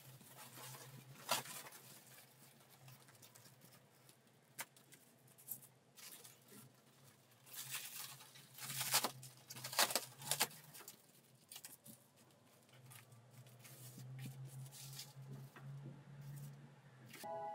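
Light handling sounds: scattered clicks and short rustling bursts, busiest in the middle, over a faint steady low hum.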